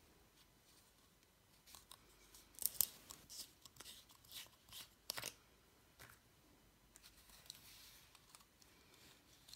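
Plastic screw cap being twisted off a small Hosch superglue bottle: a run of sharp clicks and scrapes, loudest about three and five seconds in, followed by quieter handling.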